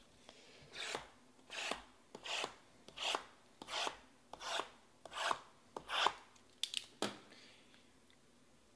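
A run of about eight rasping strokes, roughly one every 0.7 seconds, then a few quick clicks: a hand rubbing and sliding over shrink-wrapped cardboard card boxes in a stack.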